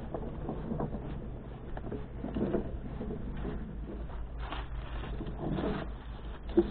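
Wheelbarrow being pushed, its wheel rolling and its metal tray rattling and knocking irregularly over a concrete path, with one sharp knock near the end.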